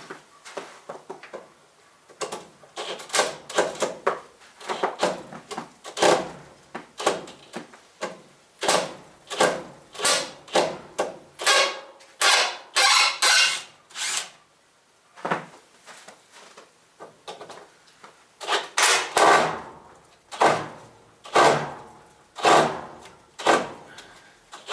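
Wooden boards being pulled and knocked loose from a garage wall: a long, irregular run of sharp knocks, creaks and scrapes, with a short lull a little past the middle.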